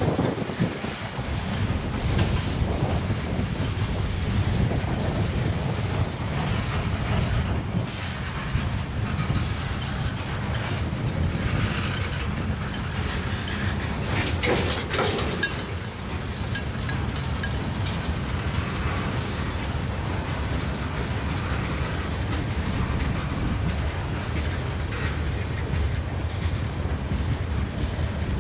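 Freight cars of a mixed freight train (covered hoppers, tank cars and boxcars) rolling past: a steady rumble of steel wheels on the rails, with a brief sharper metallic sound about halfway through.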